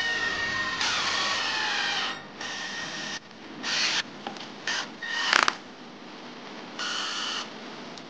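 Cordless electric screwdriver whining as it drives small screws into RC car parts. It runs for about two seconds, then in a series of short bursts, with a few sharp clicks about five seconds in.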